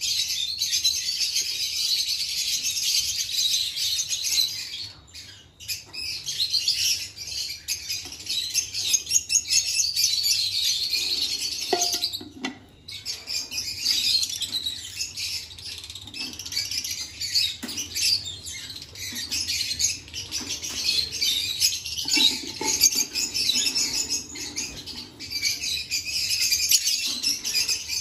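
Many caged lovebirds chirping and chattering together in a continuous, dense chorus, with two brief lulls about five and twelve seconds in.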